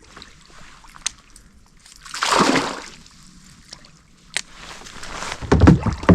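Water splashing and sloshing in two bursts, about two seconds in and again, heavier, near the end, as a hooked black bass thrashes at the surface. A couple of sharp clicks come in between.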